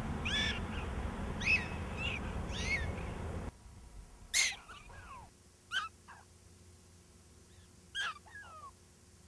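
Black-tailed prairie dogs giving jump-yip calls: a string of short, high yips that rise and fall in pitch, with several animals joining in, some close and some faint. A low rushing noise lies under the first few seconds, then stops.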